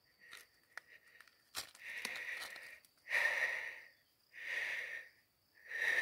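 A man breathing heavily through exertion, about four long breaths a second or so apart, with a few small clicks of stone as a quartz crystal is pried loose from the vein by hand.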